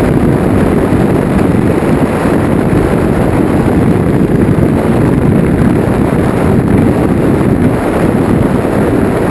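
Loud, steady wind rush buffeting the microphone of a camera riding on top of a radio-controlled electric ducted-fan jet in low, fast flight.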